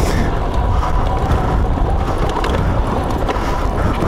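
Suzuki DR-Z400S's single-cylinder four-stroke engine running while the bike is ridden along a rough trail, mixed with steady rushing noise and scattered clicks and knocks.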